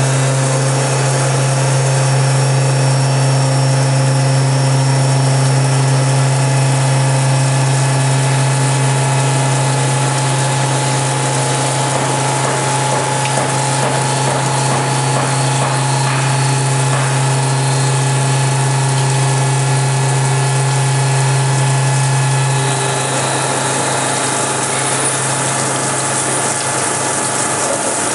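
Unisign Uniport machining centre running, with a loud steady low hum and a hiss of coolant spray at the cutting head. The hum drops in level about three-quarters of the way through.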